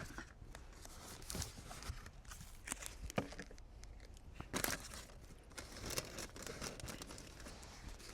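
Card packaging being torn open and crinkled by hand: irregular crackling and tearing with scattered sharp clicks. The loudest stretch comes about four and a half seconds in.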